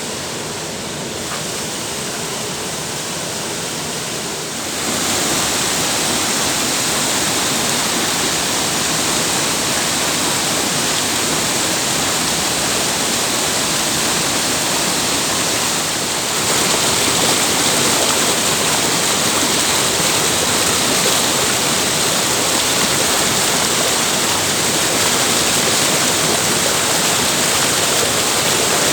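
Waterfall: steady rush of falling water, stepping up louder about five seconds in and again about sixteen seconds in.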